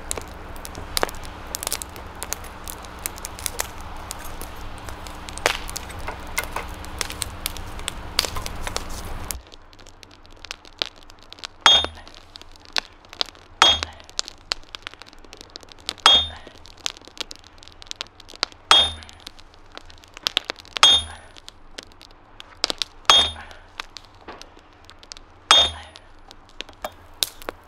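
Wood fire in a small forge crackling, with many sharp pops over a steady hiss. About nine seconds in this gives way to a hand hammer striking a red-hot club hammer head set on a bottom fuller on the anvil: seven ringing blows about two seconds apart, fullering a shoulder for a straight peen.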